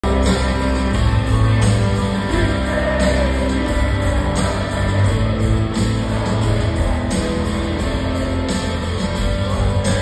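Rock band playing live in a large arena, recorded from high in the stands: loud, steady electric guitars, bass and drums.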